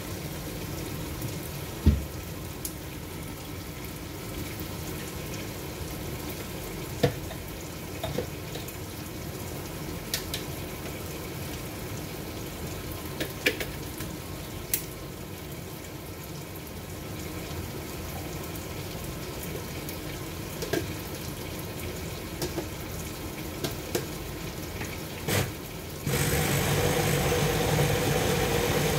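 A pot of curry simmering on the hob, giving a steady bubbling hiss, with a few sharp clicks and knocks of handling. About 26 s in, an electric appliance's motor starts and runs on with a steady hum, louder than the simmering.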